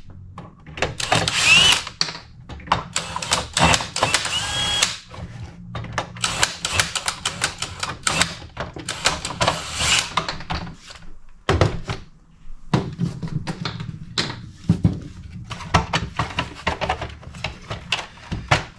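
Rapid clicking, knocking and rattling of plastic parts and tools being handled and pried as a cap is worked off inside the blower's housing, with a few brief squeaks in the first few seconds.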